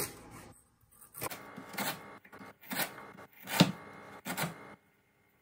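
Kitchen knife chopping peeled ginger root into small pieces on a wooden cutting board: about five separate cuts, roughly one a second, each a short knock of the blade on the board.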